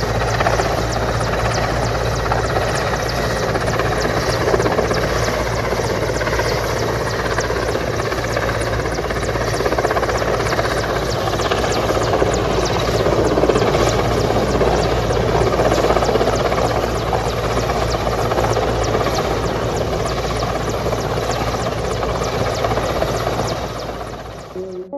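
Helicopter hovering: steady rotor and engine noise with a rapid, even blade beat, cutting off abruptly shortly before the end.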